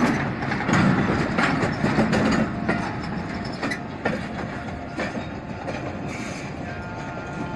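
Freight train wagons rolling past, steel wheels knocking over the rail joints in a clickety-clack that fades as the end of the train goes by. A faint steady whine comes in near the end.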